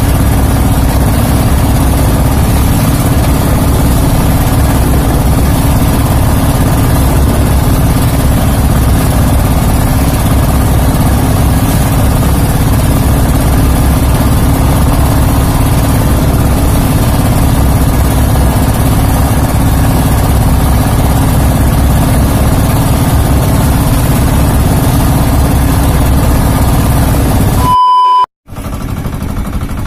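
Outrigger boat's engine running steadily under way. Near the end it cuts off abruptly, leaving a brief gap of silence with a short, high test-tone beep.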